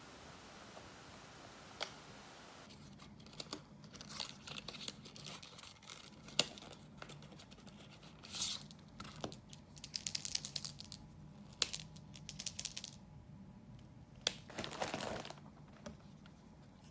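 Plastic and cardboard packaging being opened by hand, with irregular crinkling and tearing and a few sharp clicks. The longest tear comes near the end.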